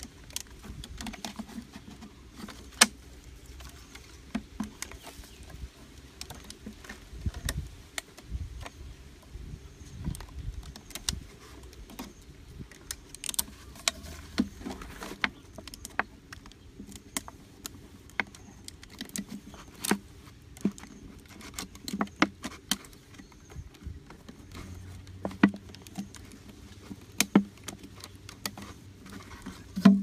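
Handling noise of a plastic bottle and a blue PVC pipe being fitted together by hand: irregular clicks, taps and crackles of plastic, a few of them louder knocks.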